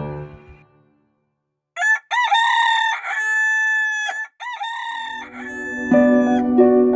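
A rooster crowing: a long cock-a-doodle-doo that rises and then holds, starting about two seconds in. Violin music fades out before it, and soft music comes back in near the end.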